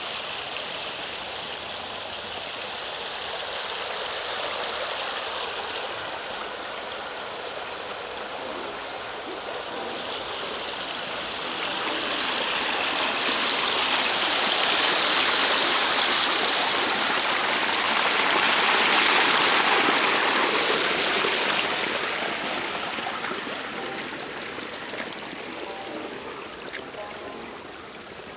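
Running water rushing steadily. It swells louder through the middle and eases off again toward the end.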